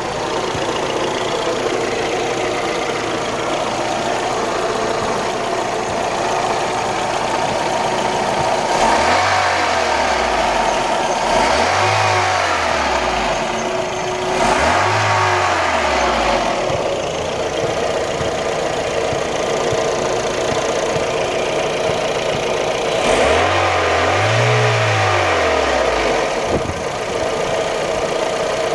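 Volkswagen Golf Mk3's 1.6 AFT four-cylinder petrol engine idling, with the throttle blipped four times, each rev rising and falling back to idle. The owner hears a strange rasping noise from the engine, of unknown cause.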